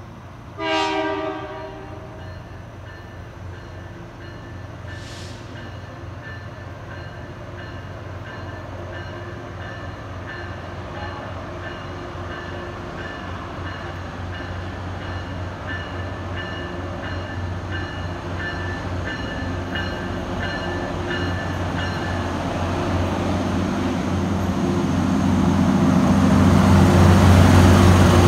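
Metro-North diesel locomotive approaching a station platform. It sounds one short horn blast about a second in, then its engine rumble and rolling noise grow steadily louder as it draws alongside. A repeated high ringing tone runs through the middle.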